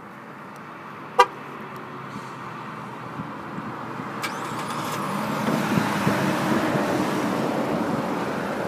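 A short horn chirp about a second in as the key fob is pressed. Then the 2018 Chevrolet Colorado ZR2's V6 engine is remote-started and runs at idle, the engine sound rising gradually over the last few seconds.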